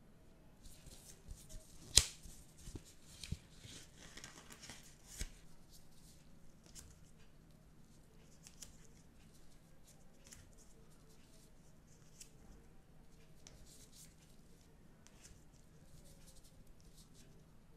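Gloved hands opening a paper sticker pack and going through a stack of die-cut stickers. There is a sharp snap about two seconds in, then a few smaller clicks and a brief paper rustle. After that come soft rustling and light ticks as the stickers are handled.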